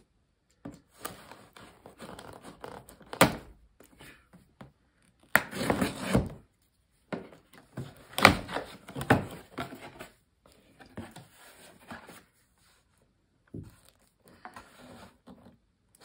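A knife cutting through packing tape along the seam of a cardboard box, in irregular scraping strokes with a few knocks on the cardboard, and the box flaps being pulled open near the end.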